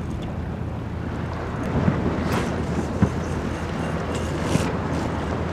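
Wind buffeting the microphone over small waves washing against a rocky shore, with a few short clicks.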